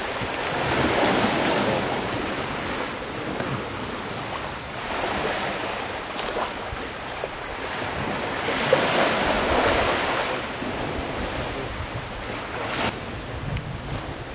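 Anak Krakatau volcano's explosive eruptions heard as rushing roars that swell three times, with wind on the microphone and a sharp knock a little past halfway. A steady high whine runs underneath and cuts off suddenly about a second before the end.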